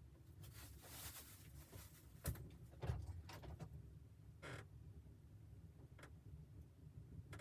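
Quiet handling sounds: light rustling, then two sharp knocks a little over two seconds and just under three seconds in, with a few softer taps after.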